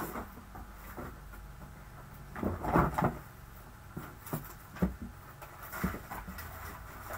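Products and packaging being rummaged through and handled: a few short knocks and rustles, the loudest cluster about two and a half to three seconds in, with smaller knocks after.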